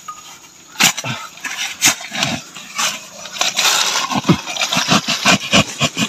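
The blade of a hand digging tool chopping and scraping into wet clay and soil, with loose soil crumbling. The strikes come about once a second at first, then quicker and closer together in the second half, with a rough scrape about halfway through.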